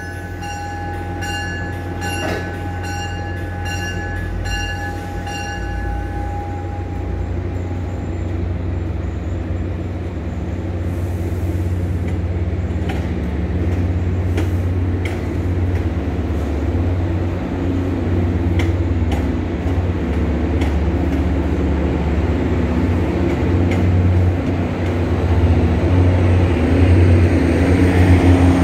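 Diesel locomotive of an MBTA commuter train pulling out, running at the rear of its train. A bell rings repeatedly for the first several seconds and fades away. After that the locomotive's engine drones steadily and grows louder toward the end, along with rolling rail noise and scattered clicks from the wheels.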